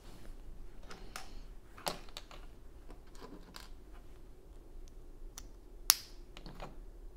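Plastic Lego pieces being handled and pressed together: scattered light clicks and small taps, the sharpest click about six seconds in.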